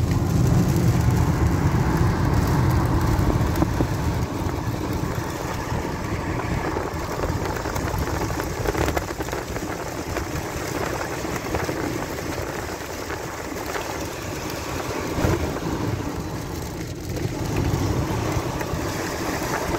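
Heavy rain beating on a car's roof and windows, heard from inside the cabin, over a low rumble that is strongest in the first few seconds.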